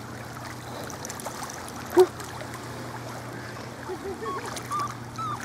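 Shallow bay water trickling and lapping gently around a small dog's legs as it wades, over a steady low hum. A brief sharp sound comes about two seconds in, and faint voices are heard near the end.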